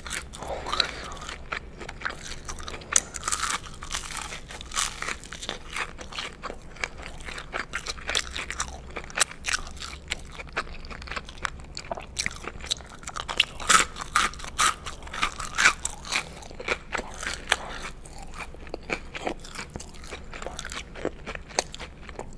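Close-miked biting and chewing of McDonald's Spicy Chicken McNuggets: the crisp breaded coating crunches with many sharp crackles, loudest about two-thirds of the way through.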